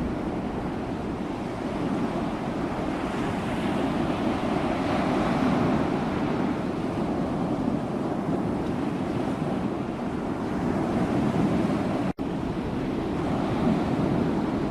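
Sea waves washing on the shore: a steady rush of surf that slowly swells and eases, broken by a momentary dropout about twelve seconds in.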